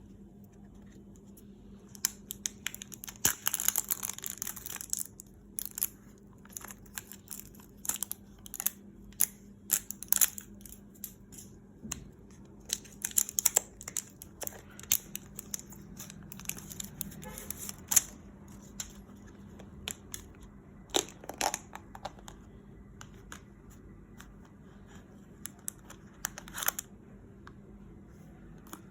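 Packaging of a modelling clay set being torn open and handled: irregular crinkling and tearing with sharp clicks and taps, starting about two seconds in, over a faint steady hum.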